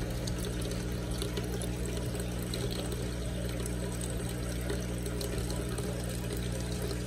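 Aquarium water circulating: a steady trickle and splash of water with a steady low pump hum beneath it.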